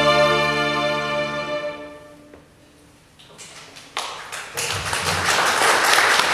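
String orchestra holding a final chord that fades away about two seconds in. After a short pause, a few scattered claps start and swell into full applause.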